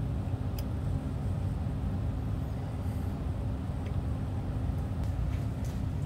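Steady low background rumble with a constant hum, with one or two faint clicks.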